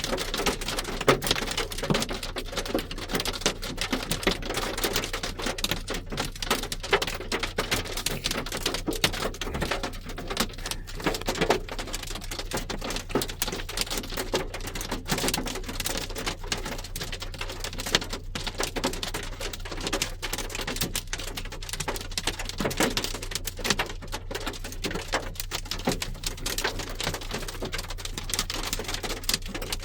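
Small hailstones pelting the roof of a car, heard from inside the cabin: a dense, unbroken patter of tiny impacts.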